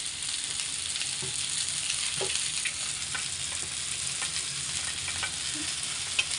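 Masala-coated sand whiting (kelangan) pieces shallow-frying in a little oil in a flat pan, a steady sizzle. A few light clicks run through it, with one sharper tap near the end.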